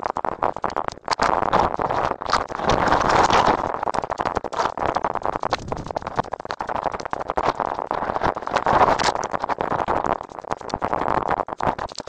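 Footsteps crunching on dry leaf litter along a bush track, mixed with the rustle of brushing past scrub and handling noise close to the microphone, in uneven swells every second or two.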